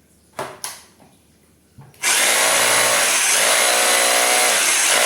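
Two short clicks, then about two seconds in a Zhongtai 2603 26 mm rotary hammer with an 800 W motor starts up and runs steadily.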